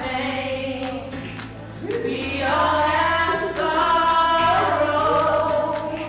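Music: voices singing long, held notes over low sustained bass notes, growing louder about two seconds in.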